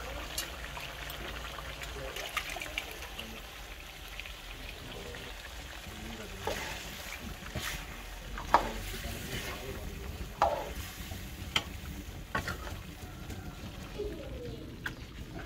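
Buffalo meat and blood sizzling in a metal karahi over a wood fire while a steel ladle stirs it, with scattered scrapes and knocks of the ladle against the pan.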